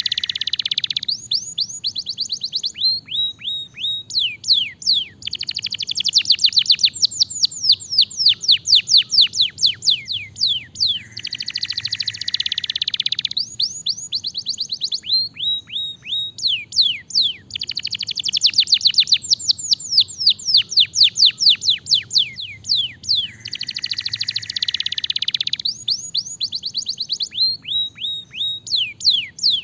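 Domestic canary singing. The same song phrase comes about every six seconds, a dense buzzy trill followed by a long run of quick falling notes, five times over.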